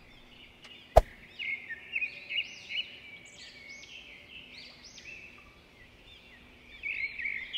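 Birds chirping in many short rising-and-falling calls, busiest at the start and again near the end, with one sharp click about a second in.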